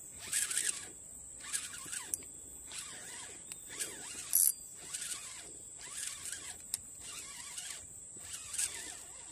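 Fishing reel being wound in short, irregular spurts, a raspy zipper-like whirr, as line is brought in after a bite.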